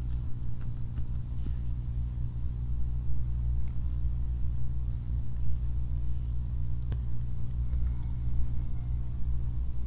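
Steady low electrical hum on the recording microphone, with a few faint keyboard keystroke clicks while the search term is typed. A single sharper key click comes about seven seconds in as the search is entered.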